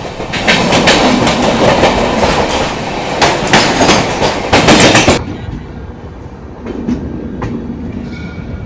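A goods train passing close alongside on the next track, heard from the open door of a moving passenger train: a loud rush of wind and rain with rattling wagon clatter and wheel clicks. About five seconds in it cuts off suddenly to a much quieter steady background with a few sharp clicks.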